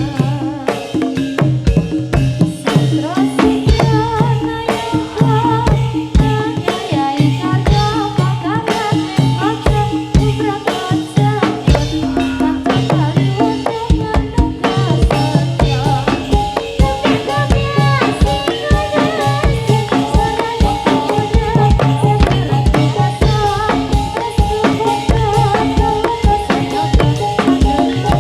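Live Javanese gedrug music: kendang and small ketipung hand drums beat a dense, fast rhythm over a steady bass and melodic instruments.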